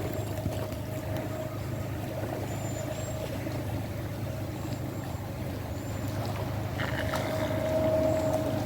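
A steady low engine-like drone with a constant mid-pitched hum, growing louder near the end. A few faint, very high short bird chirps sound over it.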